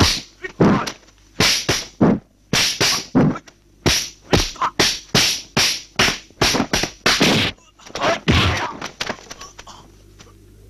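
Kung fu fight sound effects: a fast run of about two dozen punch-and-block whacks, a few every second, as the two fighters trade blows. The blows stop a little before the end.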